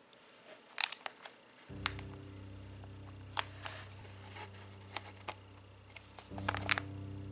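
Crinkling and crackling of a crafting kit's clear plastic packaging handled in the hands, in sharp irregular bursts. Quiet background music with sustained low notes comes in about two seconds in and swells again near the end.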